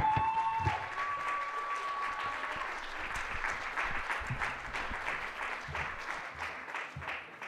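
A crowd applauding, dense clapping that thins out toward the end, with a high tone held over the first couple of seconds.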